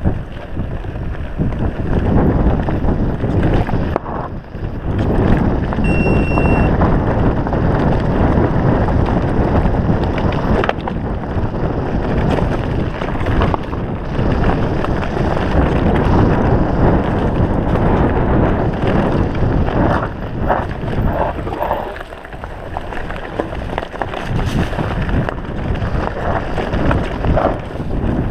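Wind rushing over the microphone while a mountain bike rides down a rough dirt trail, with the rattle of tyres and bike over the uneven ground. A brief high tone sounds about six seconds in.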